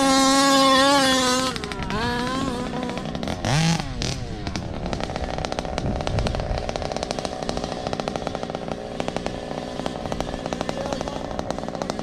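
Radio-controlled cars running: a high, steady motor whine at the start, one car passing quickly about four seconds in, then a small two-stroke engine running steadily with a fast pulsing rattle.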